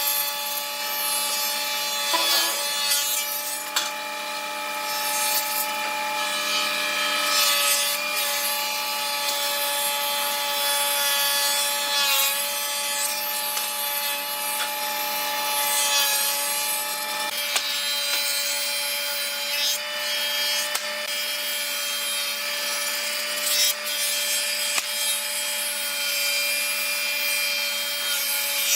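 An electric power tool works wood steadily, its motor whine mixed with the rasp of the cut. The whine dips briefly a couple of times as the tool bites under load.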